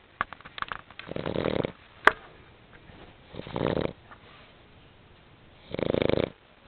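A sleeping dog snoring: three rasping snores of about half a second each, spaced roughly two and a half seconds apart. A single sharp click about two seconds in is the loudest sound, with a few fainter clicks near the start.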